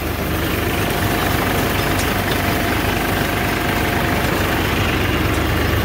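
Escorts 435 tractor's diesel engine working steadily under load while its PTO-driven rotavator churns dry soil. The engine is under a little strain, with the rotavator spun at about double its set speed by the 1000 rpm PTO.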